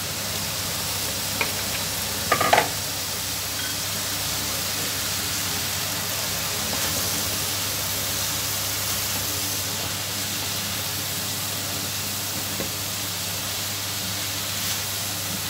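Beef strips and sliced red onions sizzling steadily in a hot frying pan while being stirred with a spatula, with a brief knock about two and a half seconds in.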